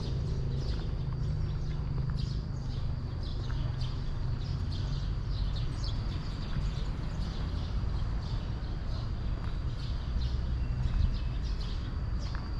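Footsteps of a person walking on a concrete courtyard, short taps repeating through the whole stretch, over a steady high-pitched whine and a low rumble.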